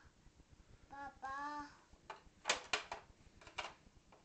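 A child's high voice makes two short sheep-like 'baa' calls about a second in, then come several sharp clicks and taps of small plastic toys being handled and knocked together.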